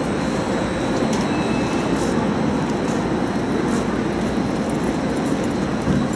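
Steady rumble of a railway station's train shed with trains standing at the platforms, with a few faint clicks scattered through it.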